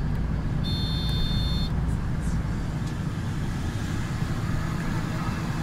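City bus interior while riding: steady engine and road rumble. About a second in there is a brief high-pitched tone lasting about a second.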